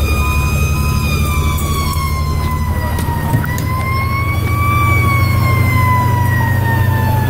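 Fire engine siren wailing, slowly rising and falling, heard from inside a fire engine's cab over the truck's steady low engine drone.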